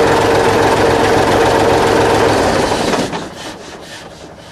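A truck's 11.5-litre straight-six diesel engine running with a steady whine over its clatter, then shut off about three seconds in and dying away to a stop.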